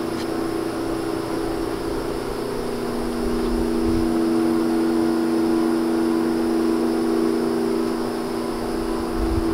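A steady machine hum made of two constant low tones, getting a little louder for several seconds in the middle.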